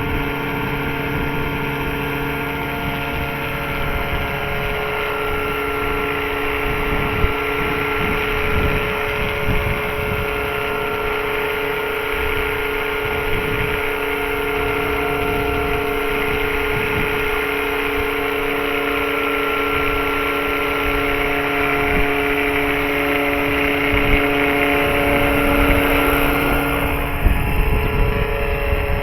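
Large electric RC scale helicopter (Eurocopter BK117) in flight, its electric motor and rotor making a steady whine whose pitch shifts slightly near the end. Wind buffets the microphone in gusts.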